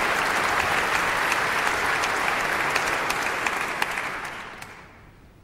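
Large audience applauding, the clapping dying away about four to five seconds in.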